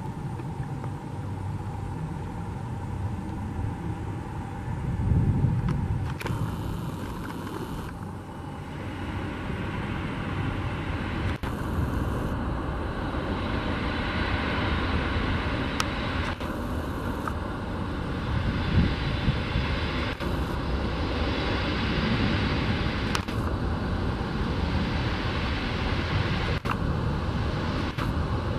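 Four-engine Boeing 747-400 jetliner landing and rolling out on the runway: a continuous jet-engine rumble that swells about five seconds in, with the roar broadening from roughly nine seconds on.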